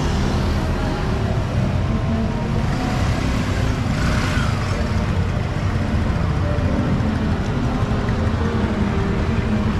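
City street traffic: engines of cars and other vehicles running close by in a steady din, with a brief louder hiss about four seconds in.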